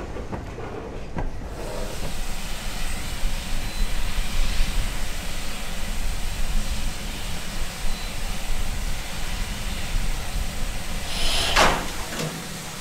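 Standing steam locomotives hissing steadily, with a short, sharp louder burst near the end.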